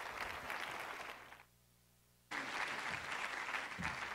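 Audience applauding. The applause fades out about a second and a half in, leaves a short gap of near silence with a faint hum, then cuts back in abruptly and carries on.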